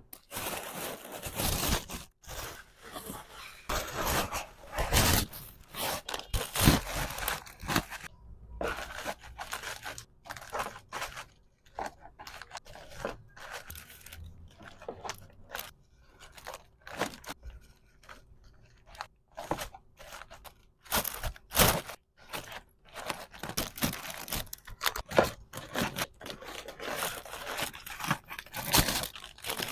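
Packaging materials being handled by hand: irregular crinkling, scraping and tearing sounds with short clicks and taps, coming in quick uneven strokes.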